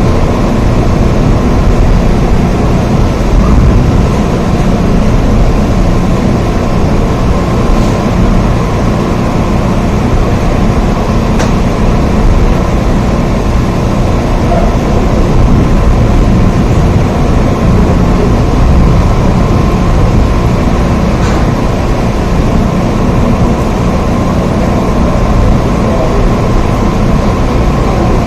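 Steady rain, a constant loud wash of noise with a heavy low rumble under it and a few faint ticks.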